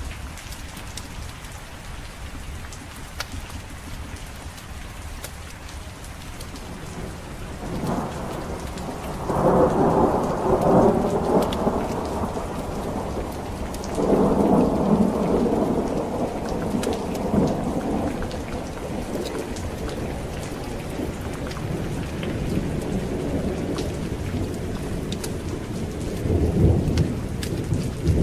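Steady rain with rolling thunder. A rumble builds about eight seconds in and peaks loudly, a second roll follows a few seconds later and fades slowly, and a shorter crack of thunder comes near the end.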